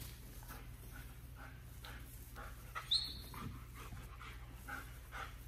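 German shepherd panting in quick, even breaths, with one short high whine about three seconds in.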